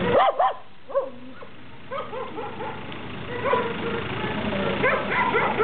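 Kennelled shelter dogs barking: a few loud barks at the start, then many dogs barking over one another at different pitches, building from about halfway.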